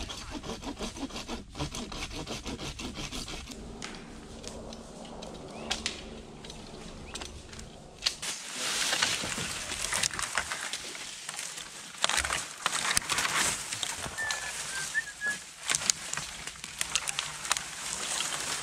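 Dead branches and poles rustling and crackling in dry leaf litter as they are carried and dragged, with small twigs snapping, denser from about halfway through. A few short bird chirps come near the middle.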